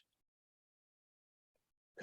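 Near silence: a pause between narration.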